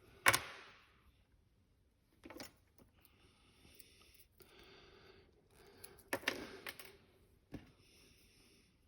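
Small clicks and taps of pocket knives and their tweezers being handled on a table. There is a sharp click just after the start, a few softer taps, and a cluster of clicks about two-thirds of the way through.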